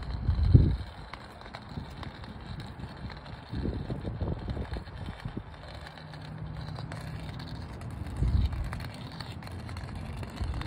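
Wind rumbling on a phone microphone in gusts, loudest about half a second in, over footsteps and the light taps and scrapes of a long white cane's tip on brick paving.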